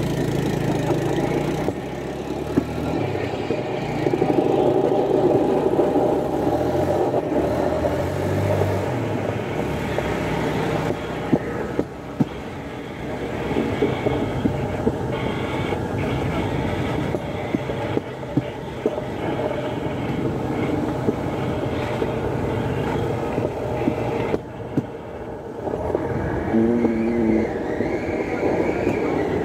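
Motorodillo (motorized rail car) running along the railway track: a steady engine sound whose pitch shifts during the first ten seconds, with a few short sharp knocks scattered through.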